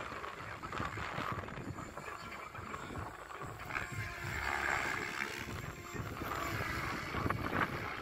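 Radio-controlled aerobatic helicopter's rotor and motor whine, swelling for a couple of seconds in the middle as it manoeuvres, over wind rumbling on the microphone.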